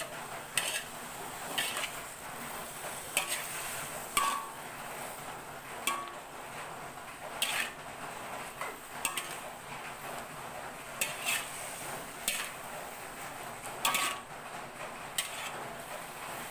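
A spatula scraping and knocking against an aluminium wok while stir-frying vegetables, a stroke every second or so, over a steady sizzling hiss.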